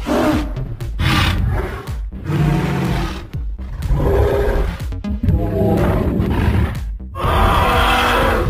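Dinosaur roar sound effects for a Tyrannosaurus rex: about five deep, growling roars one after another, each cut off abruptly, over background music.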